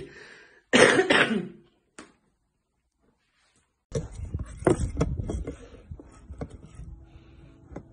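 A short, loud vocal burst from a person about a second in. From about four seconds in, a clear plastic cup knocks and scrapes on a tabletop in a run of sharp clicks as a kitten pushes its head into it.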